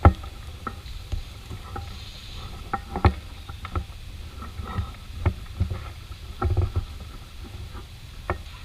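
Scattered, irregular clicks and knocks, about a dozen, over a steady low rumble.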